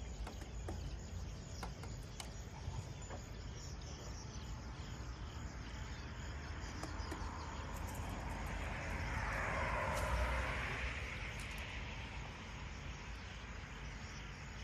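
A road vehicle passing by: its tyre and engine noise swells, peaks about two-thirds of the way through and fades away, over a steady low outdoor hum.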